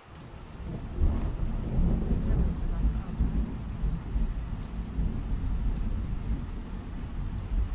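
Rain falling with thunder rumbling; a deep rumble swells about a second in and rolls on.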